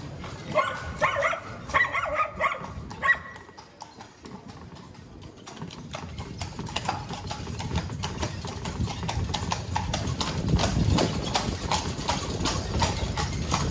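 A carriage horse's hooves clip-clopping on cobblestones, with the carriage's wheels rumbling over the stones. The hoof strikes grow steadier and louder from about six seconds in. A few brief loud pitched calls or voices sound in the first three seconds.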